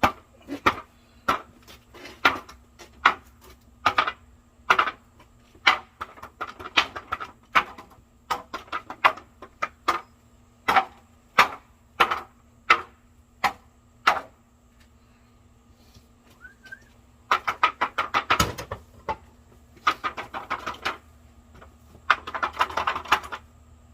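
Repeated sharp strikes on a wooden beam being distressed with tools, about one and a half hits a second. After a short pause, three bursts of rapid clattering hits follow near the end.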